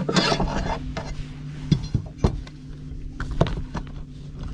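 A plastic fish measuring board is handled on a boat's carpeted deck and a bass is laid on it: rustling at first, then a few sharp knocks, over a steady low hum.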